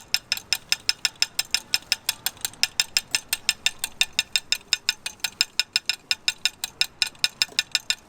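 Steady, rapid mechanical clicking, about five sharp clicks a second, keeping an even beat: the rice-cake stall's signature 'strange sound'.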